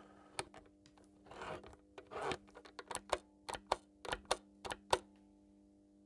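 Vintage Märklin Super model-railway transformer humming steadily while its speed-control knob is turned by hand. A run of sharp clicks from the knob comes thickest between about three and five seconds in, with a couple of short scrapes earlier.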